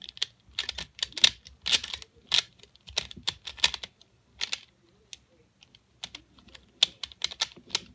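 Rapid plastic clicking and clacking of a pyraminx puzzle being twisted quickly by hand, in irregular runs of several clicks a second, thinning out for a moment about halfway through.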